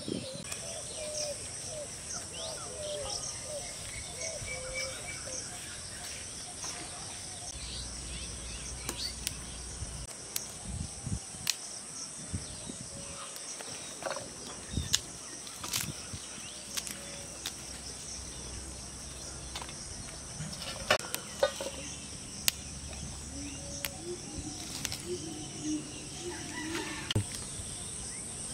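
Outdoor rural ambience: insects droning steadily at a high pitch, with scattered sharp clicks and light knocks.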